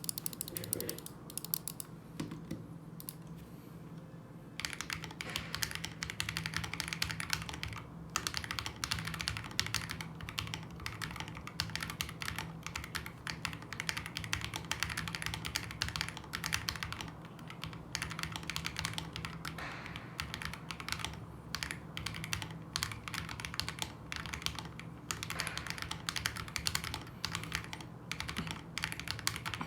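Typing on an SP-Star Lucifer mechanical keyboard: a continuous, irregular run of keystroke clicks, lighter and sparser for the first few seconds, then dense and fast from about four seconds in.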